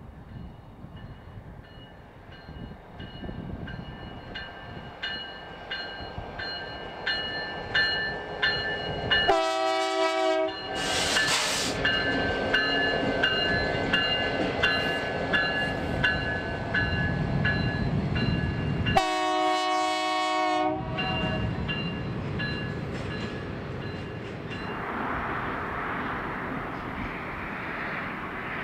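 BNSF diesel locomotive approaching and passing, its bell ringing steadily and its horn sounding two long blasts about ten seconds apart over the rising rumble of the engine and wheels on the rails. The bell stops a few seconds after the second blast, leaving the hiss and rumble of the passing train.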